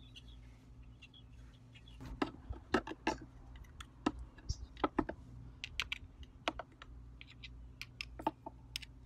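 Irregular light metallic clicks and taps of a hand tool working at the terminal connection on a motorcycle starter motor, as the cable connection is undone.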